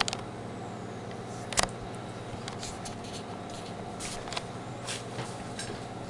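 Handling noise: a few sharp knocks and clicks, the loudest about a second and a half in, with fainter scattered ticks afterwards, as a sheet of paper is moved about on a cluttered bench. Under them runs a steady low hum.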